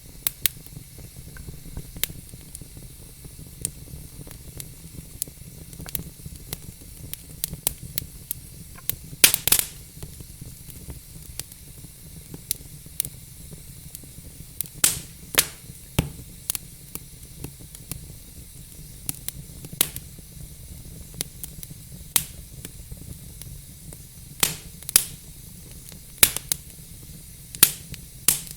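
Log fire crackling: a steady low rumble and hiss with irregular sharp pops and snaps, the loudest about nine seconds in.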